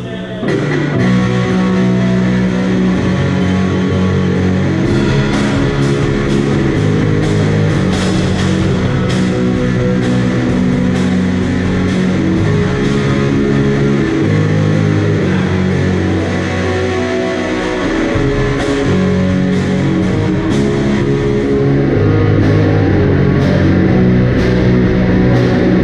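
A rock band playing live without vocals: electric guitars through small combo amplifiers over a drum kit, with cymbal crashes throughout.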